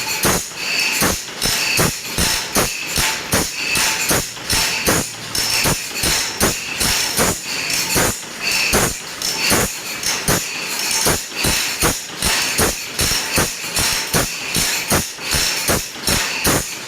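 A steel file rasping across handsaw teeth in quick, regular strokes, about three a second, each stroke leaving a short metallic ring.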